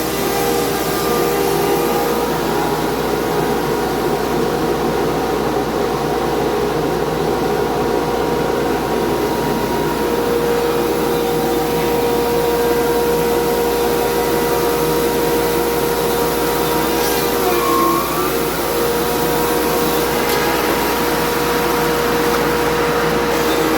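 Sawmill running steadily with a constant mechanical whine, the sawyer moving the carriage back and forth through a cut. The whine dips briefly in pitch about 18 seconds in, then comes back up.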